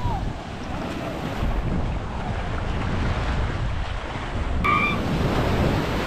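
Sea surf washing onto the beach, with wind buffeting the microphone. A short high-pitched tone cuts through about five seconds in.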